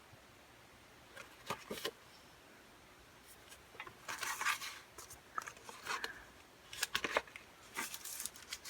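Hands handling a CD album and its packaging: scattered sharp clicks and short rustles, starting about a second in and growing busier toward the end.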